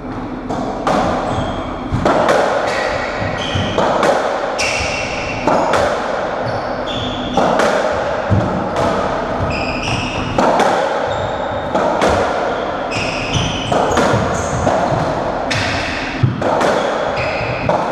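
Racketball doubles rally on a squash court: the ball struck by rackets and smacking off the walls and floor in sharp hits, about one to two a second, each echoing in the enclosed court, with short high squeaks of trainers on the wooden floor between shots.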